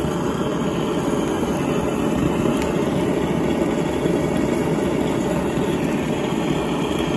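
A handheld gas blowtorch blasting a steady, loud flame onto slices of salt-cured pork belly to sear them.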